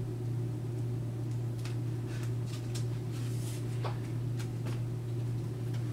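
Steady low hum, with scattered light clicks and scrapes of a craft knife, metal ruler and foam being handled at a cutting mat.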